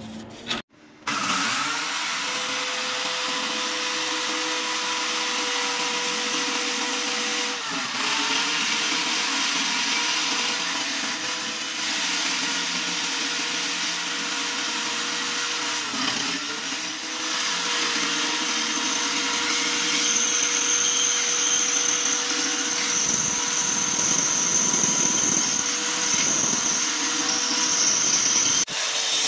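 Drill bit sharpener running steadily: a small electric motor's constant hum and whine under a grinding hiss. A higher hiss joins about two-thirds of the way through, and the sound drops out briefly near the end.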